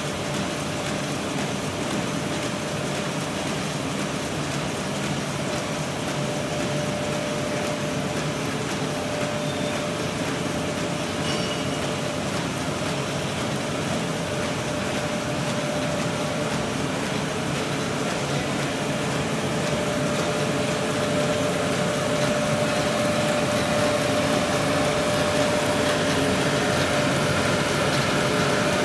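KM330 paper bag machine running, its rollers feeding a kraft paper web: a steady mechanical hum with a constant tone, growing a little louder after about twenty seconds.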